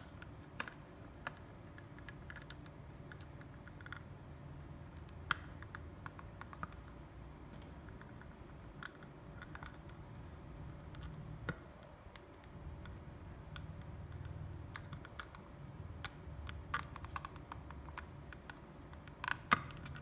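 Scattered small plastic clicks and taps, with a low rubbing of hands on plastic, as a PVC scale figure is handled and its feet are worked onto the pegs of its black plastic display base. The clicks come irregularly, a few louder ones near the end.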